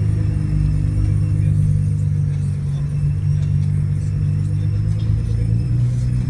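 Nissan GT-R running with a steady low drone, and a faint thin high-pitched brake squeal from its Ferodo DS2500 pads on Rotora discs that comes and goes, clearest in the middle.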